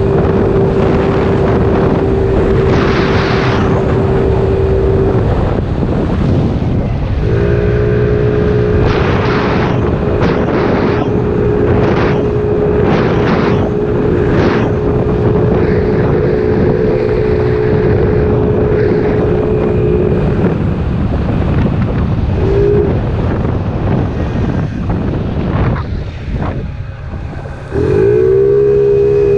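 Kymco Agility 50 scooter engine with a newly fitted 72cc big bore kit being run in, holding a steady high-revving note under throttle, dropping away when the throttle closes about five seconds in and again for a stretch near the end before picking back up. Wind rush on the microphone runs under it.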